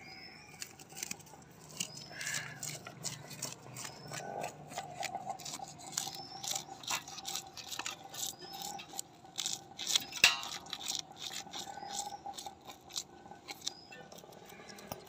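Kitchen knife scraping the scales off a tilapia: quick, irregular scraping strokes, several a second, with one sharp louder stroke about two-thirds of the way through.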